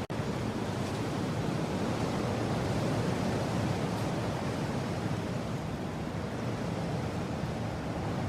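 Steady mountain wind blowing, a dense rushing noise that swells a little in strength about midway. A split-second gap cuts it right at the start.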